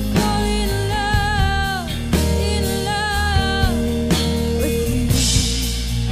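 Background rock music with a steady drum beat and melody lines that slide down in pitch.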